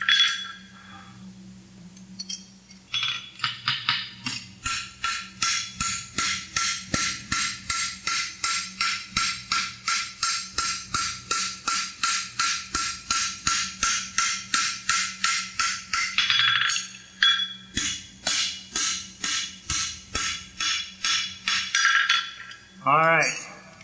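Hand hammer striking red-hot steel bar stock on a farrier's anvil, a steady run of about three ringing blows a second with a short break part way through, as the inside edge of a horseshoe branch is forged narrower. A low steady hum runs underneath.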